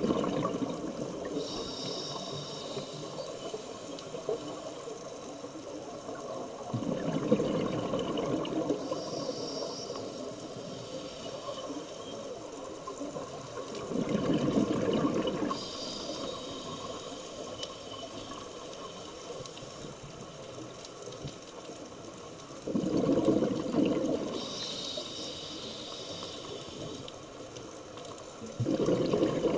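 Scuba diver breathing through a regulator underwater: a bubbling, gurgling exhalation about every seven seconds, each followed by a shorter, higher hiss of the regulator.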